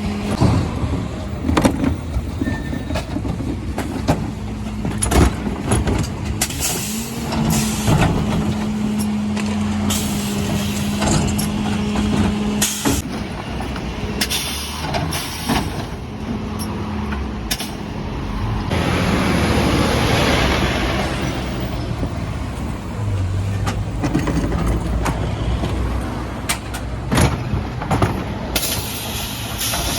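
Mercedes Econic refuse truck running with a steady hum, with repeated knocks and bangs as bins are worked on its lifters. A long air hiss comes about 19 seconds in.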